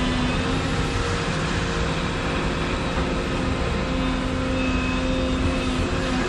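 Volvo 235EL excavator running steadily as it works. A low hum from the machine drops away just after the start and comes back about four seconds in.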